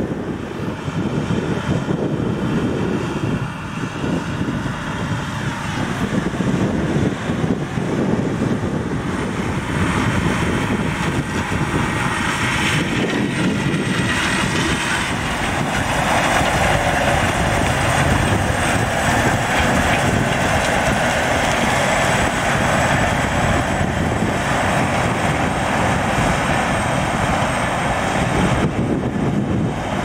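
Claas Lexion 770 Terra Trac combine harvester running steadily under load while harvesting corn with an eight-row corn header. The machine noise grows a little louder and brighter about halfway through as the combine passes close.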